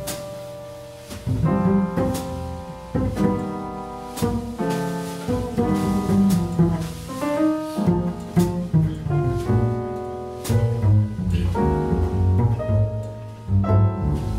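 Jazz piano and double bass playing together, the piano moving through chords and lines over the bass.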